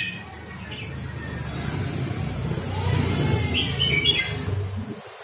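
Red-whiskered bulbul giving a few short chirps, about a second in and again near four seconds, over a low rumble that swells and then fades away.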